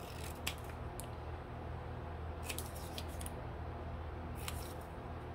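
Scissors snipping through a small paper label: several short, sharp cuts in little groups.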